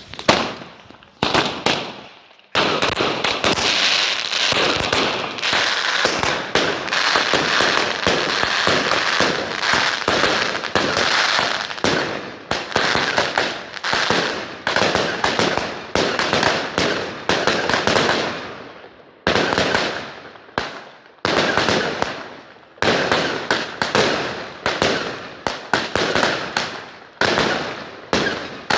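Fireworks going off: a dense, rapid run of firecracker bangs and crackling. After about eighteen seconds it thins out into separate sharp bangs, each trailing off briefly.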